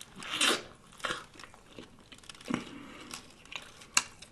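Close-miked eating of a lettuce-wrapped sub sandwich: a loud crunchy bite about half a second in, then chewing with a few sharp wet clicks, and some paper wrapper crinkling.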